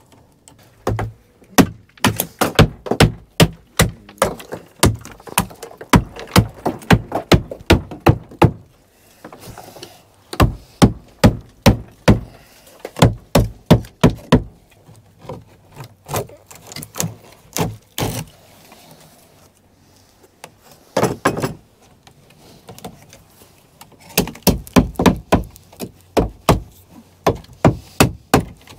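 Repeated hammer blows on wood, in quick runs of about three strikes a second broken by short pauses: rotten planks being knocked out of a wooden boat's hull.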